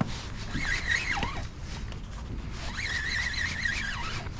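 Spinning reel's drag buzzing in high, wavering stretches as a hooked trout pulls out line: once about half a second in, and again for over a second from near the three-second mark.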